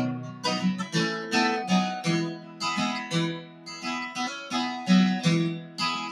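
Solo acoustic guitar strummed in a steady country rhythm, about two strums a second, each chord ringing on between strokes: an instrumental break between sung verses.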